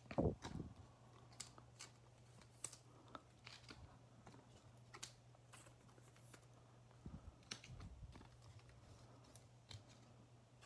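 Faint clicks and light taps of trading cards being handled and laid down on a tabletop, with a soft thump just after the start, over a low steady hum.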